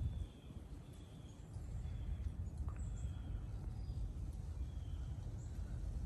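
Outdoor wind rumble buffeting the microphone, with faint short bird chirps repeating every second or so.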